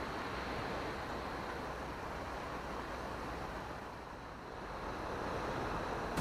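Sea surf washing against a rocky shore: a steady rushing that eases briefly about four seconds in, then swells again.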